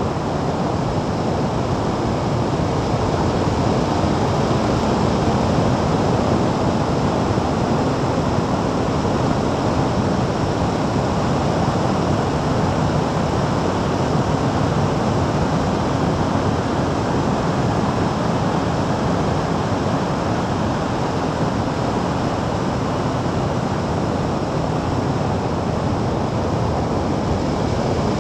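Steady wind rush on an action camera's microphone while riding a motorcycle at road speed, with engine and tyre noise underneath.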